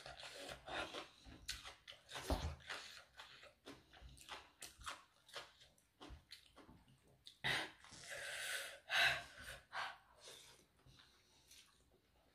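Close mouth sounds of someone eating a spicy cucumber salad with octopus: repeated wet chewing and crunching clicks. About seven and a half seconds in comes a louder hiss of breath lasting about two seconds.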